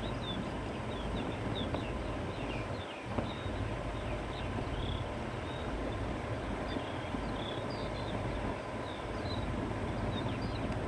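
Countryside wind ambience: a steady wind rushing and rumbling, with small birds chirping and twittering throughout.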